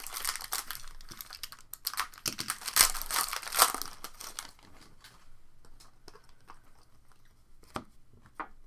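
Trading-card pack wrapper being torn open and crinkled for about four and a half seconds, then a few light clicks and taps as the cards are handled.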